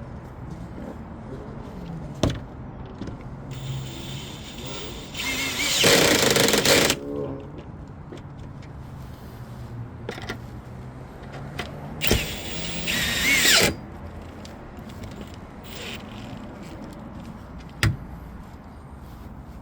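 A handheld power drill-driver runs in two bursts of about two seconds each, driving fasteners back in as parts are refitted after the oil change. A few sharp clicks fall between the bursts.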